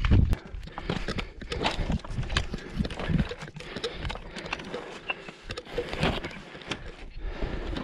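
Footsteps crunching on loose rock scree, with trekking pole tips clicking against the stones in an irregular run of short strikes.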